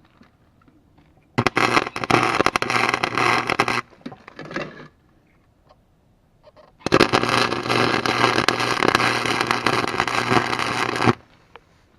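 Electric arc welder laying welds on a snowblower's broken steel auger blade: two runs of crackling arc with a steady electrical hum, the first about two seconds long and the second about four seconds, each starting and stopping abruptly.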